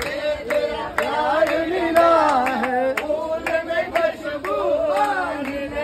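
A group singing a Hindi devotional bhajan together, with hand claps keeping the beat about twice a second.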